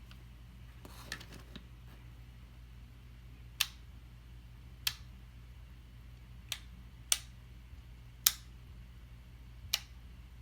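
Six sharp clicks at uneven intervals, with faint handling rustle before them, over a faint steady low hum.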